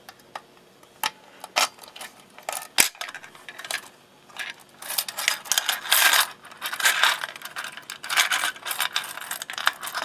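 A ring of keys jangling and clicking against a fire alarm pull station as a key is worked in its reset lock. A few separate clicks at first, then steadier jangling from about halfway through.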